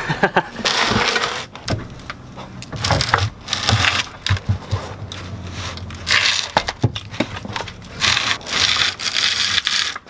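Cardboard sheet carrying a heavy BMW Getrag 260 transmission scraping and crunching as it is dragged over concrete, in irregular bursts with a few knocks.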